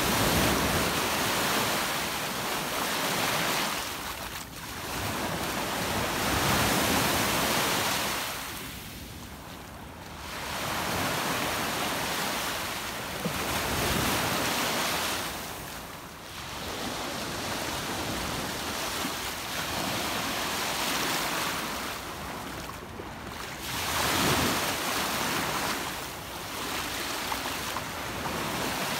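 Small sea waves breaking and washing up a sandy shore, the surf swelling and falling away about every six to seven seconds.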